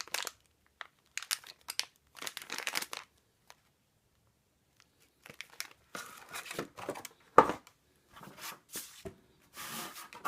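Packaging being handled: bursts of crinkling and tearing, with a pause partway through and one sharp knock about seven seconds in.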